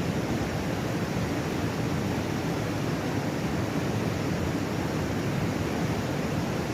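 River rapids rushing in a steady, unbroken roar of white water, deepest in the low tones.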